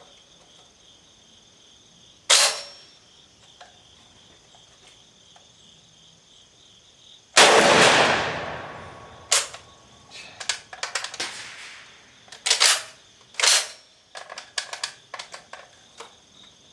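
Centurion BP12 12-gauge bullpup shotgun: a sharp metallic clack a couple of seconds in, then one loud shot about seven seconds in that trails off over a second or so. After the shot comes a run of clicks and clacks as the action is worked, with a shell misfeeding, which the shooter suspects is the magazine's fault.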